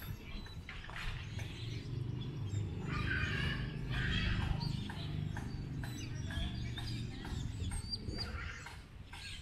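Small birds chirping and twittering in short, repeated calls from the trees, over a steady low rumble.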